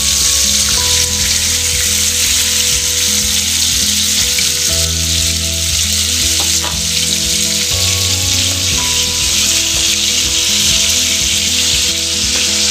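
Duck breast fillets searing in hot butter in a frying pan: a steady, loud sizzle.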